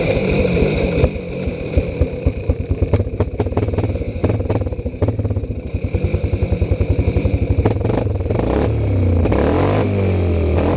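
ATV engine chugging at low revs, its firing pulses uneven as it works, then revving up about nine seconds in and holding a steadier, higher speed.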